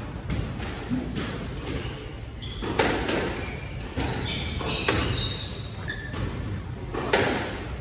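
Squash rally: the ball knocking sharply off racquets, front wall and floor several times, echoing in the court, with short high squeaks of shoes on the wooden floor in the middle.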